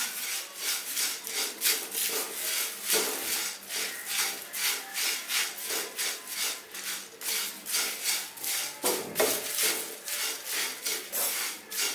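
Crisp dry-roasted curry leaves, with dried red chillies and urad dal, being stirred in a pan: a rhythmic dry rustling and scraping, about two or three strokes a second. The leaves have roasted crisp.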